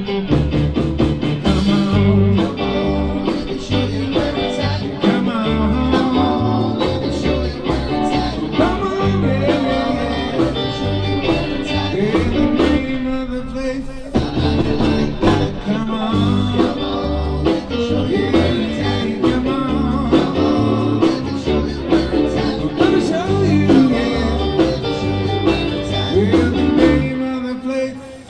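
Live band playing amplified through a PA: electric guitar, keyboard and drums, with a steady beat.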